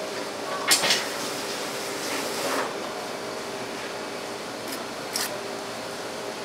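Knife scraping and knocking as a large tuna is cut: a few short, sharp strokes, the strongest just under a second in and another around five seconds in. Under them runs a steady fan-like hum.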